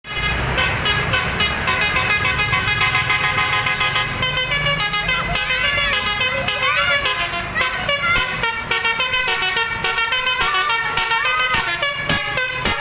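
Bus telolet horn with twelve roof-mounted trumpets playing a fast melodic run of many stepped notes, with a few sliding notes in the middle. A low rumble runs underneath for the first four seconds or so.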